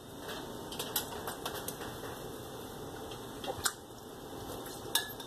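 A person chewing a mouthful of lasagna: soft wet mouth sounds with a few light clicks.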